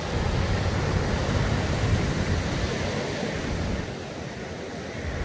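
Surf breaking and washing up a sandy beach, a steady rush of noise, with wind rumbling on the microphone. The sound eases a little about four seconds in.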